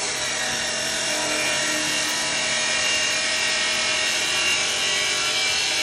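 Electric abrasive cut-off saw grinding through a steel beam: a steady, high-pitched grinding screech of the disc on the metal over the hum of the motor.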